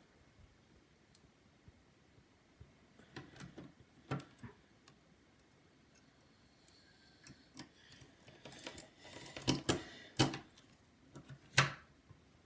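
Sparse small clicks and taps of a precision screwdriver and tiny metal parts being worked into an opened iPhone 7: screwing in an internal bracket. The taps come more often and louder in the last few seconds.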